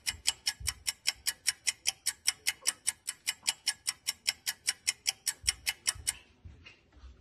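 Rapid, evenly spaced clock-like ticking, about five ticks a second, that stops about six seconds in.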